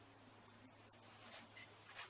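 Near silence: room tone with a faint steady low hum.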